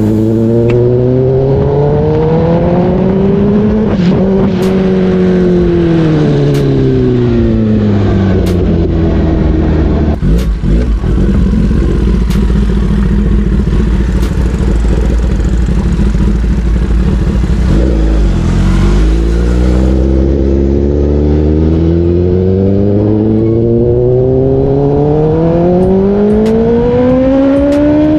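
Kawasaki Ninja ZX-10R inline-four engine running under the rider: the revs climb for a few seconds, fall away for several more, settle into a low steady run for about eight seconds from about ten seconds in, then climb again near the end.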